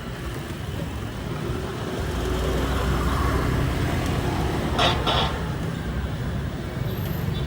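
Road traffic running past: a steady low engine rumble that swells about two seconds in, with one brief, sharp higher sound just before the five-second mark.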